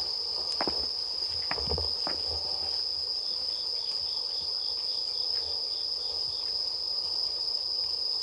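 A steady, high chirring of night insects, with a second insect pulsing about three to four times a second until near the end. There are a few soft footsteps on paving in the first two seconds.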